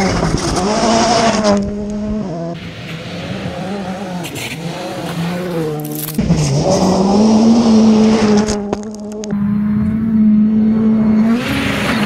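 Rally cars at full speed on a gravel stage, their engines revving high and dropping through gear changes over several passes, with the sound changing abruptly between them. Loose gravel sprays and scrapes under the tyres, with a sudden rush of it about six seconds in.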